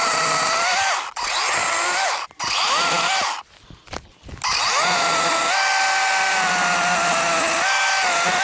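DeWalt 20 V cordless chainsaw (12-inch bar) running in short trigger pulls while limbing branches. Its electric motor whine rises in pitch at each pull and then holds steady: three runs of about a second each, a brief lull, then a longer run of about four seconds.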